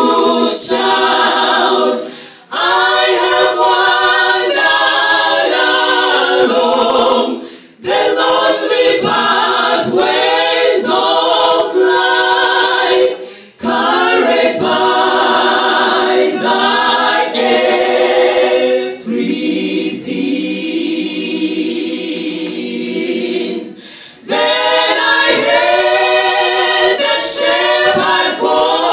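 Women's vocal group singing a gospel hymn a cappella in harmony, in phrases broken by short pauses, with a long held chord about two-thirds of the way through.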